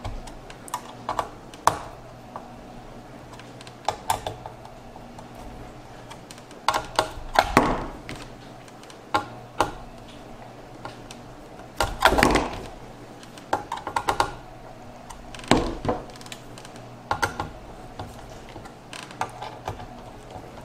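Sharp clicks and light clattering of a screwdriver working the mounting screws of a CPU cooler on a motherboard. They come in short clusters every few seconds as the screws are tightened in a diagonal pattern, with the busiest bursts about a third, a half and three quarters of the way through.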